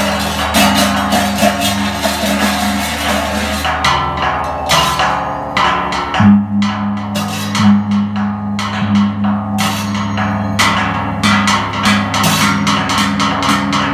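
Large Balinese hanging gongs struck with padded mallets, their deep hum wavering as it rings, with a fresh low gong stroke about six seconds in. Rapid sharp strikes run over the hum, thinning out for a couple of seconds around the middle.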